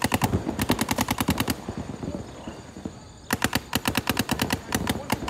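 Paintball marker firing rapid strings of shots, about eight a second. One string stops about a second and a half in, and another starts after a pause of about two seconds.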